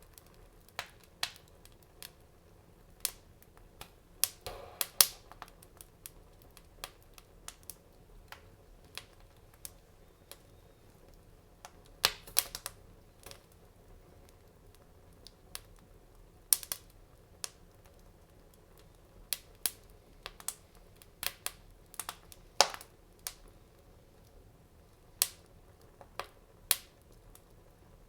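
Wood fire burning in a fireplace, crackling with irregular sharp pops and snaps, several coming in quick clusters, over a faint steady background.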